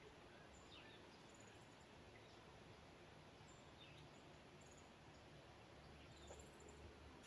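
Near silence: faint outdoor background hush with a few scattered short, high bird chirps.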